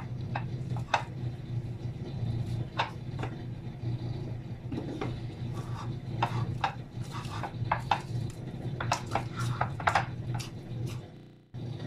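Hands kneading wheat-flour dough in a glass baking dish: irregular soft knocks and clicks as the dough is pushed and folded against the glass, over a steady low hum. The sound fades out near the end.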